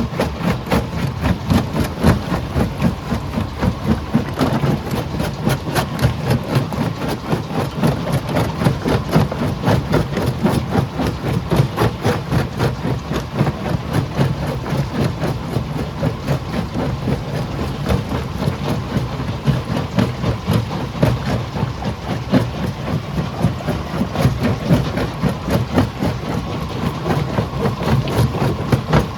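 Heavy rock-crushing machinery running under load: a low engine rumble with a continuous rapid clatter of knocks.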